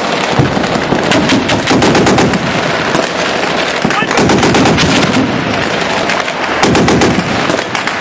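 Sustained automatic gunfire: rapid shots in dense, overlapping bursts, several a second, continuing throughout.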